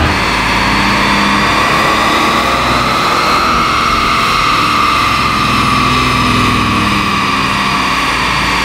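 1996 Jaguar XJR's supercharged 4.0-litre straight-six running hard on a chassis dynamometer during a power run, its rear wheels spinning the rollers. The pitch rises slowly over the first few seconds, then holds steady.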